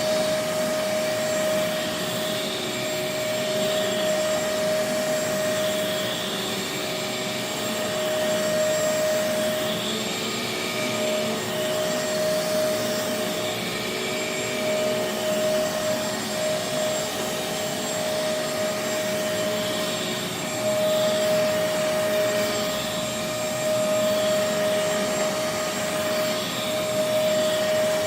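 Bissell DeepClean Professional Pet carpet cleaner's suction motor running steadily with a constant whine, its level swelling and dipping slightly as it is worked back and forth over wet carpet, sucking up the water.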